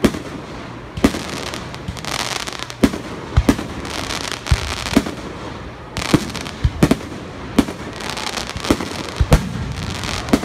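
Aerial firework shells bursting in quick, irregular succession: about fifteen sharp booms, with crackling and hiss from the bursting stars between them. It is the rapid barrage of a finale, several shells in the air at once.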